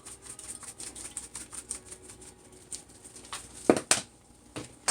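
Light clicking and ticking of seasoning being shaken out over raw chicken, with two sharper knocks of a container near the end.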